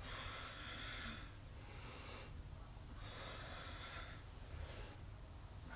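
A woman breathing deeply in and out, about four soft breath sounds in steady alternation, faint.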